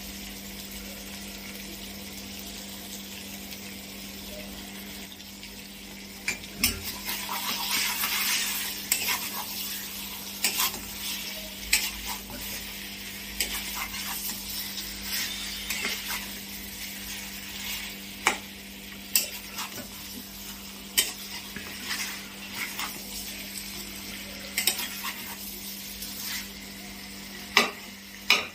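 Chicken kosa sizzling in a kadai while a spatula stirs it. From about six seconds in, the spatula scrapes and knocks against the pan at irregular intervals. A steady low hum runs underneath.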